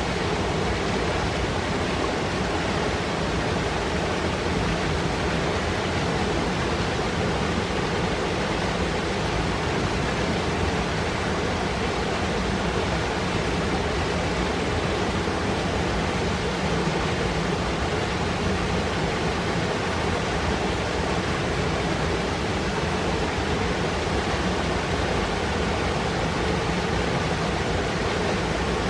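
Fast mountain river rushing and foaming over rocks: a steady, dense wash of churning water with no breaks.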